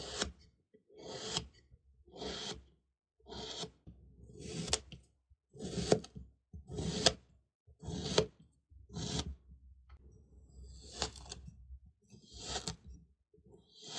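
Serrated knife slicing through crunchy kinetic sand about once a second, each cut a gritty crunch that swells and ends in a sharp tap as the blade meets the mat. Near the end a round metal cutter is pushed down into the sand.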